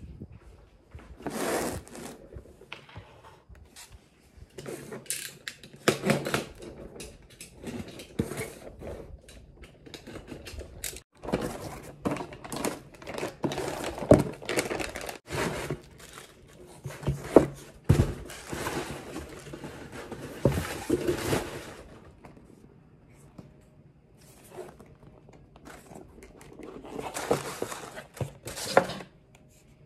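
Cardboard parcels being opened and unpacked by hand: box flaps, paper and honeycomb kraft-paper wrap rustling, crinkling and tearing in irregular bursts, with a few sharp knocks of boxes set down.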